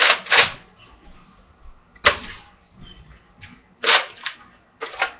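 Nerf N-Strike Elite Retaliator spring-powered dart blaster being primed and fired repeatedly: sharp plastic clacks, a pair at the start, a single one about two seconds in, another pair about four seconds in and one more near the end.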